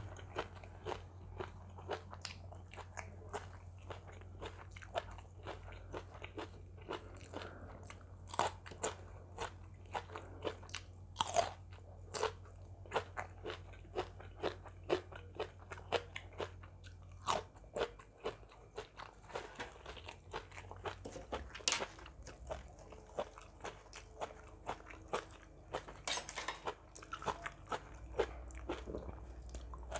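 A person eating Thai seafood papaya salad (tam sua thale) close to the microphone: a steady run of short crunchy bites and chewing, over a faint low hum that fades out a little past halfway.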